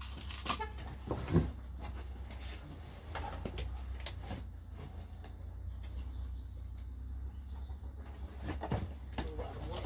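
Scattered knocks, clicks and scrapes of a pigeon shipping box being handled and opened, the sharpest knock about a second and a half in, over a steady low hum.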